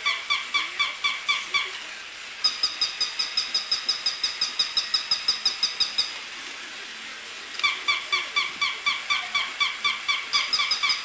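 Two plush toy puppies yipping through their electronic voice boxes: rapid, high-pitched squeaky yips, about five a second. One toy's higher yips run first, the other's follow after a pause of about a second and a half, and near the end both yip together.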